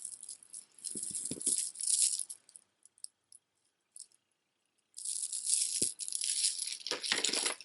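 Strands of dyed stone beads on a long necklace clattering and rattling against one another as they are handled, in two spells with a short pause about four seconds in.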